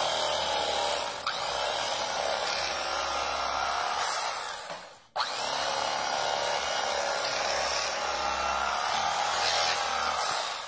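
Cuisinart CEK-30 electric carving knife running, its reciprocating serrated blades sawing through a crusty loaf of bread with a steady buzz. The knife dies away about five seconds in, starts again at once for a second slice, and stops just before the end.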